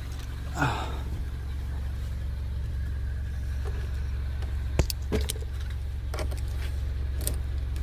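Honda CR-V engine idling with a steady low hum, with a few light clicks partway through.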